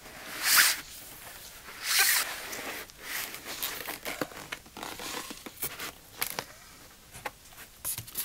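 A large sheet of corrugated plastic being bent and folded by hand into a boat pontoon: two louder, longer rasping rushes about half a second and two seconds in, then lighter rustles, creaks and clicks as the sheet flexes and slides on the bench.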